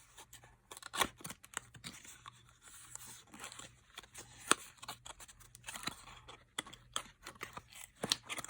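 Product packaging being handled and opened by hand: a string of small clicks, taps and scrapes over a faint rustle, with a few sharper clicks about a second in, halfway through and near the end.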